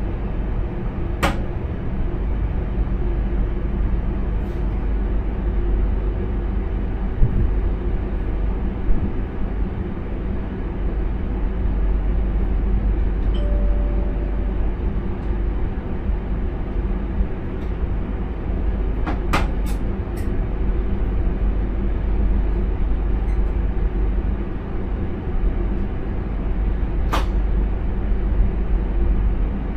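Intercity train running steadily, heard from the driver's cab: a constant low rumble of motors and running gear, with a few sharp clicks, three in quick succession about two-thirds of the way through.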